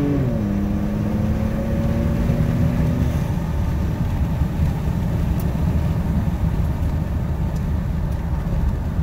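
2014 Ford F-150 Tremor's twin-turbo 3.5-litre EcoBoost V6 at full throttle, heard from inside the cab: its note drops as the automatic transmission upshifts, holds steady for a few seconds, then fades as the throttle comes off. Steady low road and tyre rumble remains.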